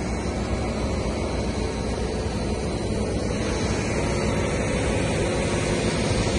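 Steady rushing road noise and engine hum of a truck-mounted road-marking machine driving slowly along a highway, growing slightly louder.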